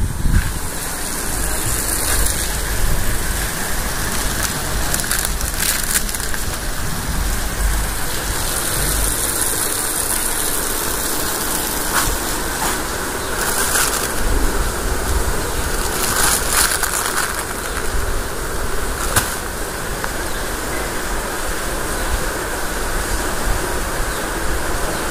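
Steady rushing background noise with a low rumble, broken by a few short clicks or rustles.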